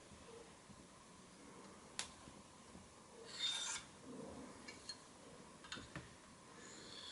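Faint metal scraping and clicking as an Allen key works the roller lock of a uPVC window through the gap between sash and frame. There is a sharp click about two seconds in, a short scrape about halfway through that is the loudest sound, a few light clicks a little later, and another brief scrape near the end.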